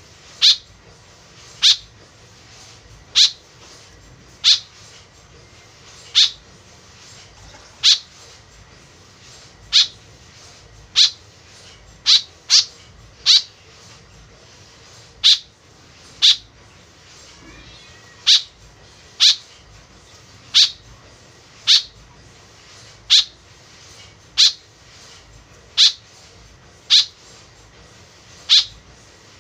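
White-breasted woodswallow (kekep babi) calling: short, high single notes repeated about once a second, now and then two in quick succession.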